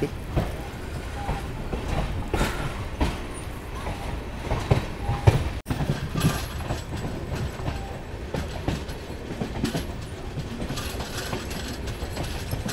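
Jan Shatabdi Express passenger coach rolling out of a station, heard at its open door: a steady rumble of wheels on the track with irregular clicks and clatter over the rail joints and points. The sound drops out for an instant a little over five seconds in.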